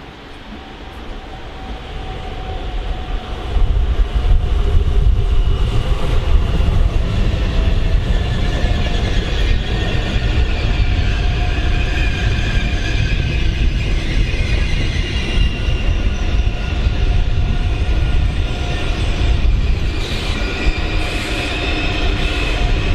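A train running along the platform track, growing louder over the first four seconds and then staying loud and steady, with high squealing tones over a low rumble.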